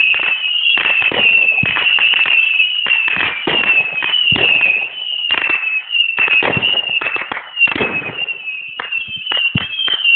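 Fireworks display: a rapid, irregular series of bangs and crackles, with many overlapping high-pitched whistles wavering in pitch throughout; the bangs thin out somewhat in the second half.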